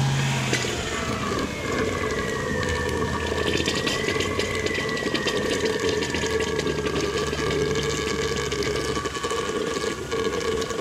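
Liquid churning and flowing in an open tank of flushing fluid during a coolant flush, with the Toyota 1UZ-FE V8 idling underneath. A thin steady whine runs through it.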